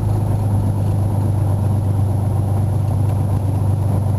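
Cessna 182's piston engine and propeller running steadily at taxi power, a constant low drone heard from inside the cabin.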